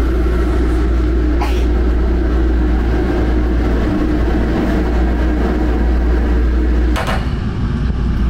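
Steady low hum of a running vehicle. There is a short click about a second and a half in, and a sharper knock near seven seconds, after which the hum changes.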